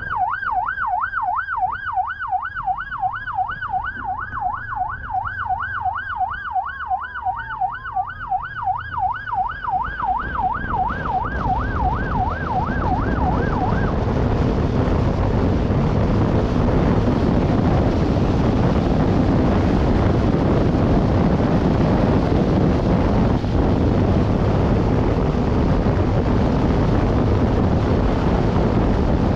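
Police siren in a fast yelp, sweeping up and down about three times a second, which stops about fourteen seconds in. From about ten seconds in, a loud steady rush of wind on the microphone builds and takes over.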